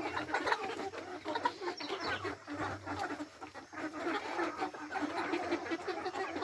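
A flock of Embrapa hens clucking continuously while feeding, many short overlapping calls.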